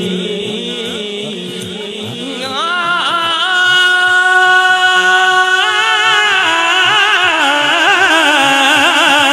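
A male naat reciter sings long, wavering held notes through a microphone and PA over a steady low drum beat. The voice is softer in the first two seconds, then swells about two and a half seconds in.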